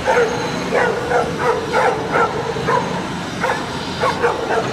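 A pack of stray dogs barking over and over, about two to three sharp barks a second with a short lull midway, as they confront a police dog.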